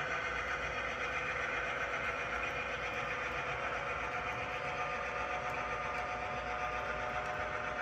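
HO scale model freight train running slowly, a steady mechanical hum from the locomotive with the boxcars' wheels rolling on the rails.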